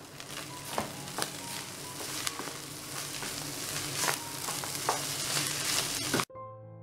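Wooden spatula stirring and tossing cooked rice in a nonstick wok, a scraping rustle with scattered light taps against the pan. Near the end it cuts off suddenly into piano music.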